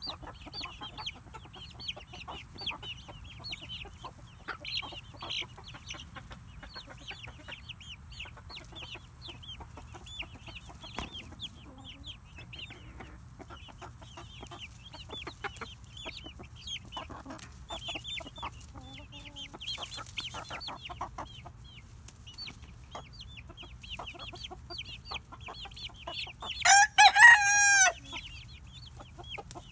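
A flock of young Silkie chickens peeping and clucking constantly with short high chirps. Near the end one bird gives a single loud crow lasting about a second and a half.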